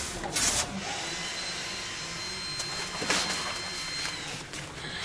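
Engine oil thinned with diesel after a diesel flush, draining from the open sump plug into a container: a steady pouring hiss, with a couple of louder swells and a faint high whistle in the middle.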